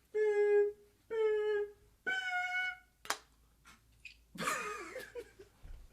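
Start-signal beeps: low tones a second apart, then a higher tone about two seconds in, the signal to go. About a second later comes a sharp click, and then a short, noisy sound with wavering pitch.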